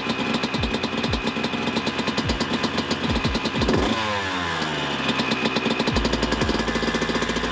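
1998 Honda CR125's single-cylinder two-stroke engine running just after its first start after a rebuild, firing unevenly, then revved a little before four seconds in, the revs sliding back down to a steadier fast idle. It seems to be running a little rich.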